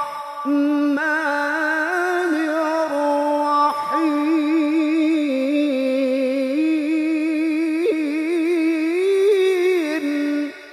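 A man reciting the Quran in a melodic, melismatic style into a microphone: long held notes with wavering ornaments, broken by a short breath about four seconds in. The voice stops abruptly near the end, leaving a fading echo.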